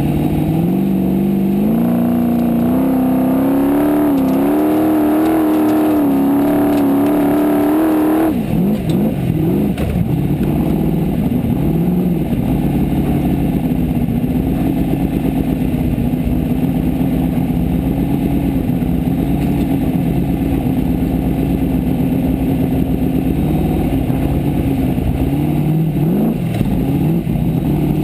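Formula Offroad race buggy's engine heard from inside the cockpit. It revs hard with the pitch climbing and wavering for about eight seconds, then drops off suddenly to a lower, steady running note.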